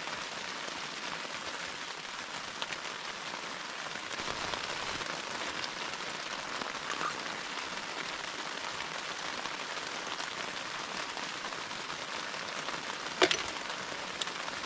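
Steady rain pattering on a tent, an even hiss with scattered drop ticks. A single sharp click sounds near the end.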